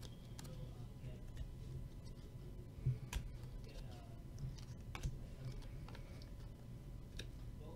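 Faint, scattered light clicks and ticks of glossy trading cards being slid and flicked against each other as a stack is sorted by hand, over a low steady room hum.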